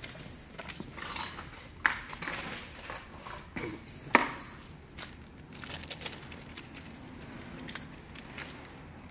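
Hands handling small metal deadbolt hardware and its packaging: scattered light clicks and knocks, with two sharper ones about two and four seconds in, and some crinkling.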